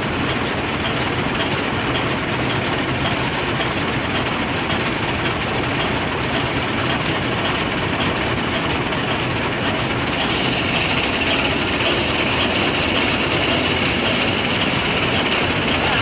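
Combine harvester running while it unloads threshed rice through its auger spout into a trolley: a steady, loud machine din mixed with the hiss of pouring grain, the higher hiss growing stronger about ten seconds in.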